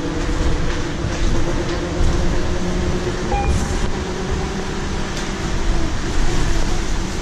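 Cabin ride noise of a 2016 Nova Bus LFSe battery-electric bus under way: steady low road rumble under a constant hum, with a few faint ticks and rattles.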